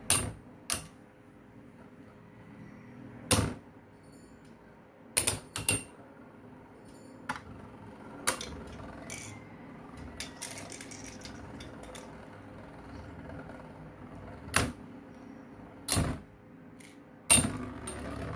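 Infinity Nado metal spinning tops clashing in a battle arena: about ten sharp clacks at irregular intervals, over a faint steady hum.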